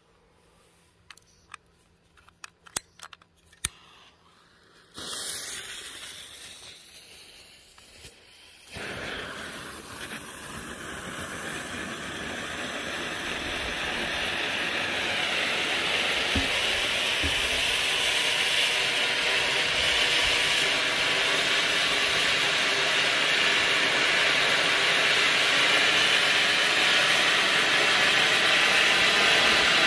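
A few sharp clicks, then the Pyrogiochi 'Effetto Vulcano' silver fountain firework ignites with a sudden hiss about five seconds in. From about nine seconds a louder, steady hissing spray of sparks builds up and holds.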